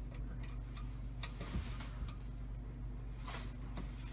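Faint, scattered clicks and taps, a few seconds apart, over a steady low hum.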